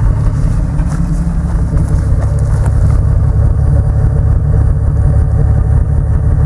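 Mitsubishi 3000GT's 3.0-litre V6 exhaust running steadily at idle, a low, even rumble. The owner suspects a misfire despite new spark plugs and plug wires.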